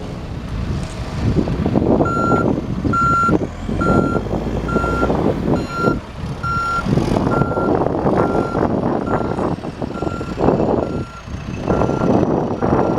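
John Deere 310SJ backhoe loader's diesel engine running under load while it backs up, its reverse alarm beeping steadily at about two beeps a second from about two seconds in.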